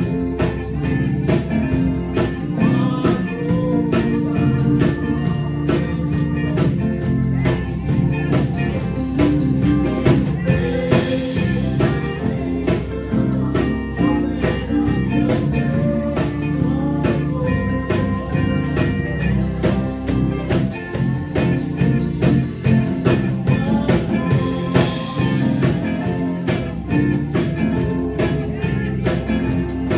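Live gospel music: a steady tambourine-and-drum beat with guitar, and a man singing over it.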